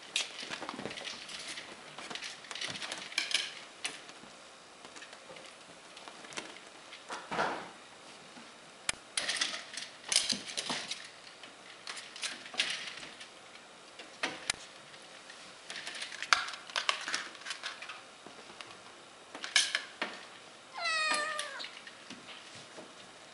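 Oriental shorthair kittens playing: scattered scuffles, scrabbles and light taps, and one kitten meowing once near the end.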